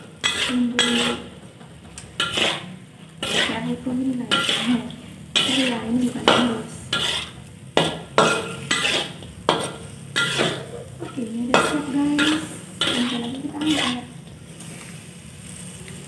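Metal spatula scraping and stirring shrimp and quail eggs around a wok, in repeated strokes roughly once or twice a second, over light sizzling from the hot oil.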